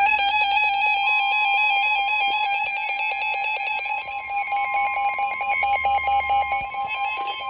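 Emergency Alert System attention signal: a steady, shrill alert tone, joined about a second in by a second, slightly higher tone, sounding together as the two-tone alarm that introduces a new warning.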